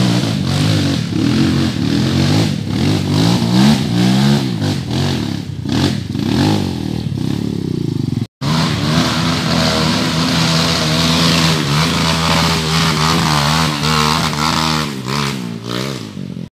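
Dirt bike engine revving up and down in repeated bursts while climbing a slippery muddy slope. After an abrupt cut about eight seconds in, a dirt bike engine runs at a steady, fairly constant speed.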